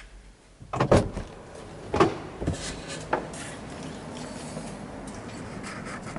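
Driver's door of a 2009 Mazda MX-5 NC opening with a loud clunk about a second in, then two more knocks and shuffling as the driver climbs out.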